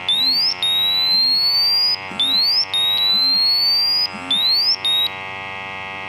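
A BW GasAlertMax XT II four-gas meter sounding its alarm in response to calibration gas during a bump test, which shows the meter is reading correctly. The alarm is a repeating electronic rising tone: a quick upward sweep followed by a slower rising tone, about every two seconds. The tones stop about five seconds in.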